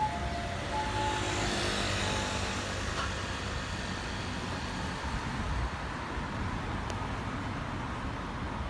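An ambulance's alternating two-tone siren, in its quieter residential mode, sounds briefly and stops about a second in. After that there is steady road traffic and tyre noise, with a vehicle passing close about two seconds in.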